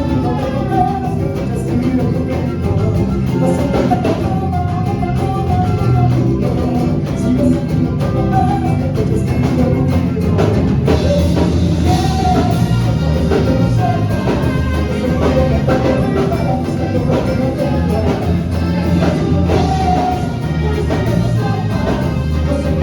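Latin American-style music with a singing voice over instruments and percussion.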